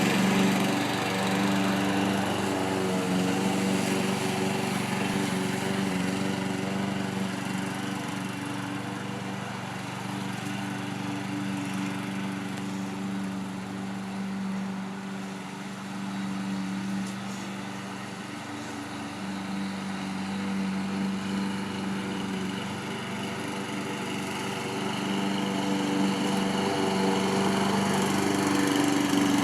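Lawn mower engine running steadily, growing quieter around the middle and louder again near the end.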